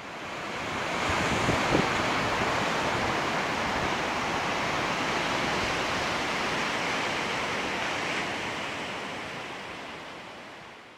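Ocean surf washing onto a sandy beach: a steady wash of waves, with some low rumble from wind on the microphone. It fades in at the start and fades out near the end.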